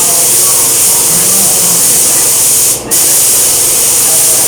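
Compressed-air spray gun hissing steadily while spraying, cutting out for a moment about three seconds in.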